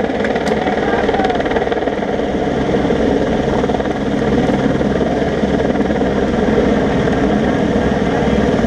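Steady, loud engine drone, with spectators' voices faint beneath it.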